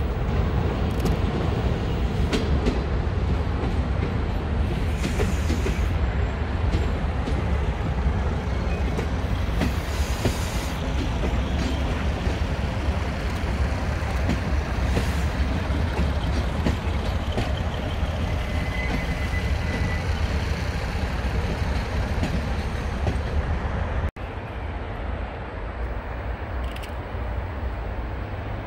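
Diesel multiple unit running past at low speed on station tracks: a steady, heavy engine and running rumble with scattered wheel clicks over rail joints. The sound cuts off suddenly near the end, leaving a quieter steady background.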